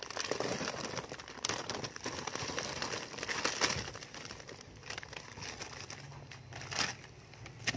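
Thin plastic candy pouch crinkling and crackling as it is handled and tipped out over a canister, with many short irregular crackles.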